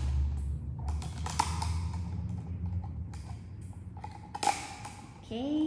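Scissors snipping through the thin plastic of a cut-down plastic bottle, trimming its rough edge: a few sharp snips with quieter crinkling of the plastic between them. The loudest snip comes about four and a half seconds in. A low rumble fades out after about three seconds.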